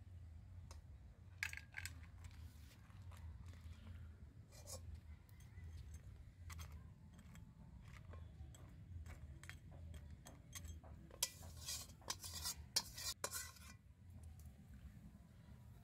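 Metal spatula scraping and clinking against a metal wok as curry is scraped out onto a plate, in faint irregular strokes with a cluster of sharper clinks about three quarters of the way through. A steady low hum runs underneath.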